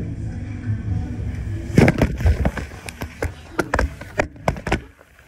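Irregular knocks and thumps of a body and phone bumping along inside a plastic tube slide: about a dozen sharp hits from about two seconds in, over a low steady rumble.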